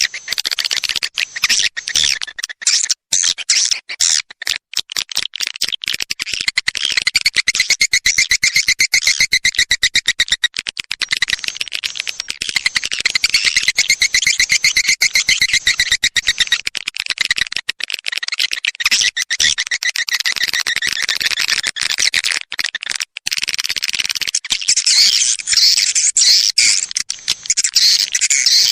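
Swiftlet lure call played from a recording: a dense, rapid, high-pitched chattering of swiftlet twitters and clicks that runs on without pause and swells louder in stretches. Swiftlet-house owners play this call to draw swiftlets in to roost and nest.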